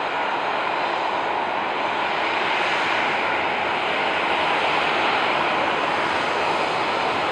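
Boeing 737-800's CFM56-7B jet engines running with a steady rushing noise that grows slightly louder toward the middle.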